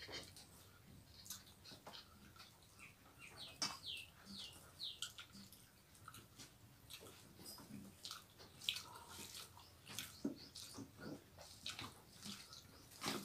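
Faint eating sounds: fingers mixing rice and curry on steel plates, with wet chewing and lip smacks making many small, irregular clicks and squelches.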